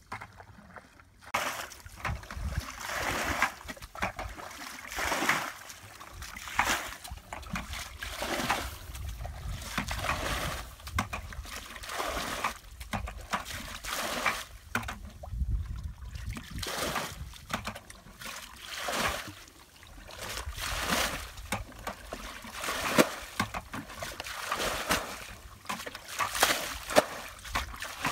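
Muddy water scooped up in plastic buckets and poured out, splashing onto mud again and again, about once a second or so, as a shallow flooded pool is bailed out.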